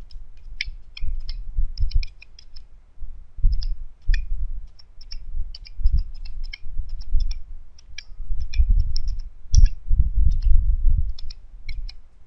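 Computer keyboard keys clicking as a line of letters is typed one key at a time: an irregular run of sharp taps, some in quick clusters, over dull low thumps that are the loudest sounds.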